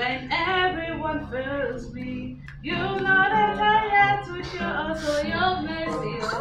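A woman singing a Christian praise song to Jesus without accompaniment, breaking off briefly about two and a half seconds in and then going on.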